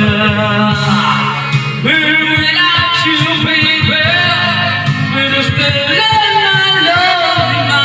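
A man singing into a corded microphone over a backing music track, karaoke-style, his voice carried through the loudspeaker.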